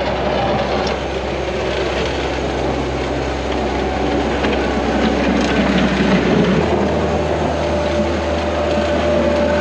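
A Bobcat skid-steer loader's engine running as it pushes snow with its bucket. The engine note changes about two-thirds of the way through.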